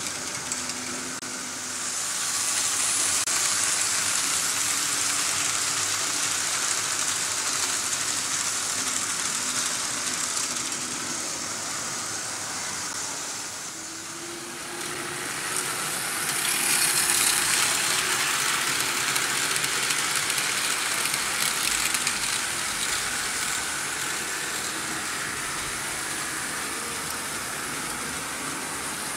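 Vintage Märklin H0 model trains running on metal M-track: a steady hiss and rattle of wheels on the stamped-steel rails, with a faint low hum from the locomotive motors. The sound swells as trains pass near and dips briefly about halfway through.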